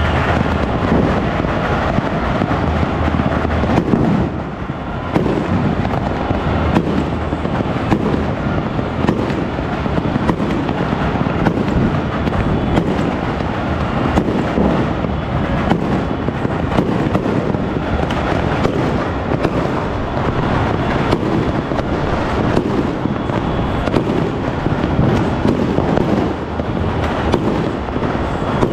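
Many fireworks and firecrackers going off at once all over a city: a continuous, dense crackle of overlapping bangs and pops with no break.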